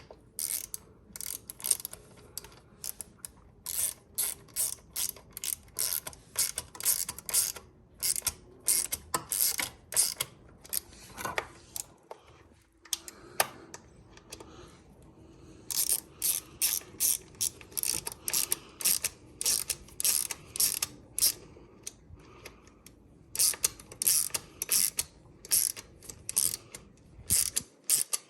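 Ratchet wrench clicking through runs of quick strokes as it drives the bolts that mount a hydraulic disc brake caliper, pausing once about halfway through.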